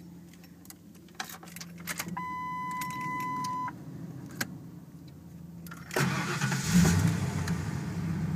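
A few clicks of the key in the ignition, then a steady warning beep for about a second and a half. About six seconds in, the 1996 Ford Explorer's 5.0L V8 cranks, catches almost at once and settles into a steady idle.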